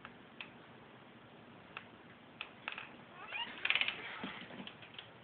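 African grey parrot giving a few faint clicks, then about three seconds in a short rising squeaky note and a brief noisy cough-like sound, its mimicked cough.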